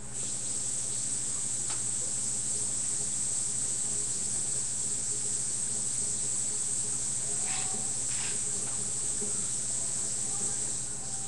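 Steady high-pitched electronic hiss with a low hum underneath: the recording's own microphone noise. A few faint rustles of hands and clothing come through as the man signs.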